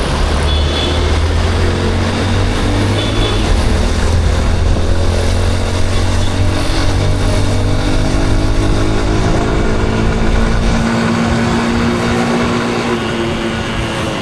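Yamaha Crosser 150's single-cylinder four-stroke engine running while riding, its pitch climbing slowly through the middle as it gathers speed, then holding steady. A deep rumble underneath drops away about three seconds before the end.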